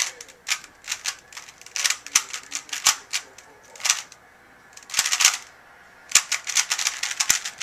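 Alpha 2 plastic 3x3 speedcube clacking as its layers are turned fast during a speedsolve, in quick bursts of turns with short pauses between.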